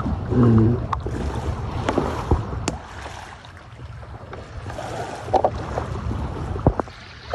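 Wind buffeting the microphone over the wash of sea water, with a few sharp clicks. A short voice sound comes right at the start.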